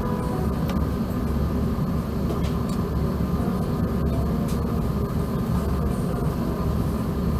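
Steady low rumble and hiss inside the cabin of a Thai Airways Airbus A380 after landing, with a few faint clicks.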